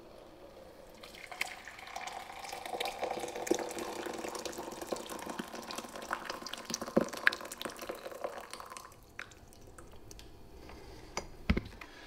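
Water just heated to 90 °C in a 0.4 L portable electric kettle poured in a steady stream into a glass Pyrex measuring jug; the pour starts about a second in and stops about three quarters of the way through. Near the end a knock as the kettle is set back down.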